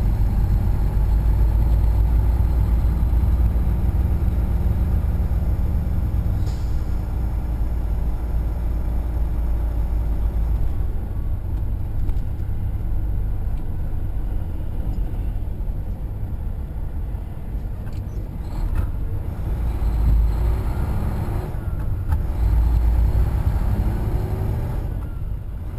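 Diesel engine of a Mack semi-truck, heard from inside the cab as a steady low rumble with road noise. It eases off in the middle and picks up again near the end as the truck gets moving.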